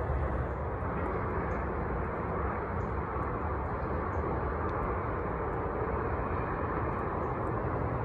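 Steady rumbling background noise, heaviest in the low end, with no distinct events.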